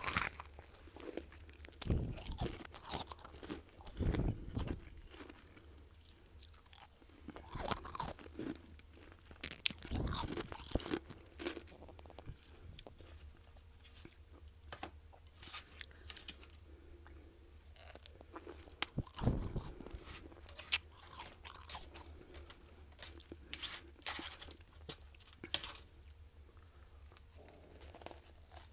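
Close-up biting and chewing of crunchy freezer frost, with a few loud crunching bites and quieter irregular crackling chews between them.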